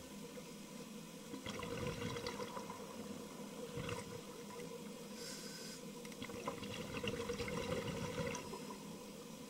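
Scuba diver's breathing through a regulator, heard underwater: a gurgling rush of exhaled bubbles, a short hissing inhale about five seconds in, then another longer stretch of exhaled bubbles.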